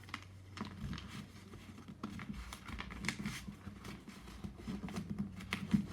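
A sheet of paper rustling and crinkling in the hands as it is folded and creased: many short, irregular scratchy strokes over a faint low steady hum.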